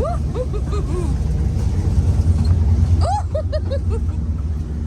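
Steady low rumble of a moving vehicle heard from inside. Brief snatches of voices come near the start and again about three seconds in.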